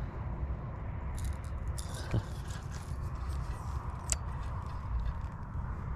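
Wind buffeting the microphone as a steady low rumble, with a few light clicks and rattles from handling a spinning rod and a rattling lure, one sharper click about four seconds in.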